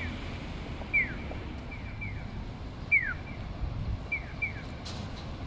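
Bird-like electronic chirps of a Japanese pedestrian crossing signal: each loud single falling chirp is answered by a fainter double chirp, repeating every couple of seconds over a steady low traffic rumble.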